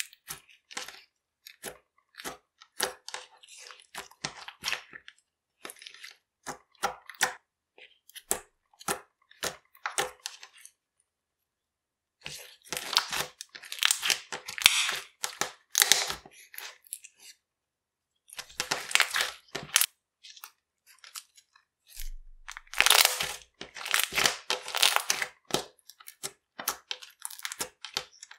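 Hands kneading, stretching and pressing down on clear slime, giving rapid sticky crackles and pops. The crackling is sparse at first, then comes in three dense, louder bursts with short silent pauses between them.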